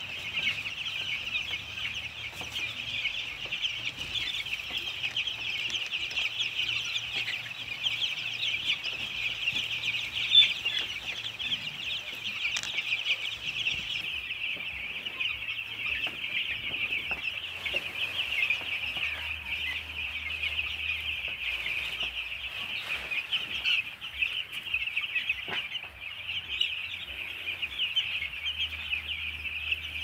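A large flock of six-day-old broiler chicks peeping all together in a constant high-pitched chorus, with one louder peep about ten seconds in.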